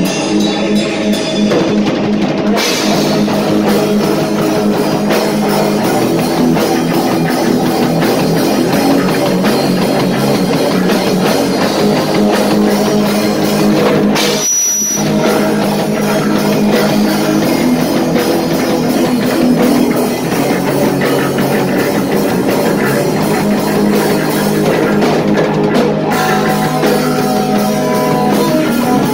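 A rock band playing live: electric guitars over a drum kit, a steady, loud full-band sound.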